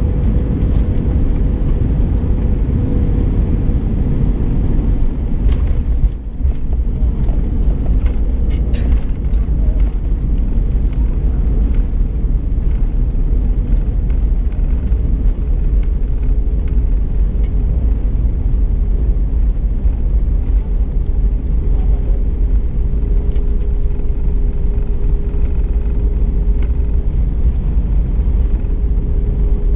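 Jet airliner landing, heard from inside the cabin: a loud, steady rumble of engines, airflow and wheels. A few knocks and a brief dip around six seconds in mark the touchdown, and the rumble carries on through the rollout on the runway with the spoilers raised.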